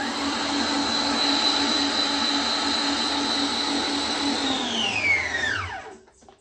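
Electric mixer beating butter, sugar and eggs into a cake-batter cream: its motor runs at a steady high whine, then is switched off about four and a half seconds in and winds down, falling in pitch until it stops.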